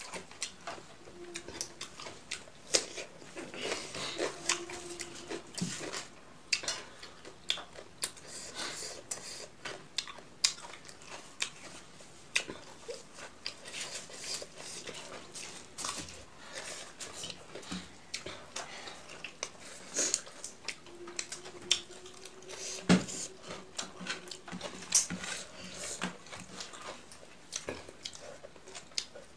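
Close-up eating sounds of a person eating rice and curry with the fingers: chewing and mouth sounds with frequent small clicks of fingers and food against the plate. A faint held low tone comes twice, near the start and about two-thirds of the way through.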